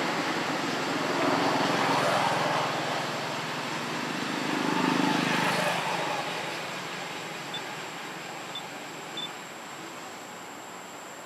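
Road traffic passing: a rushing engine-and-tyre noise swells twice and then fades away. Three short, faint high chirps come near the end.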